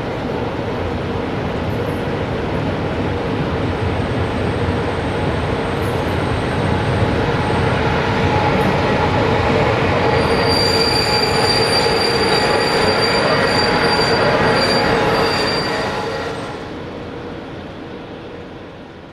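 Trains passing close by on adjacent tracks: a freight train of hopper wagons rolling by with a steady rumble of wheels on rail, while an electric locomotive hauling passenger coaches comes alongside. About ten seconds in a high, steady squeal joins the rumble and lasts about five seconds. After that the sound dies away.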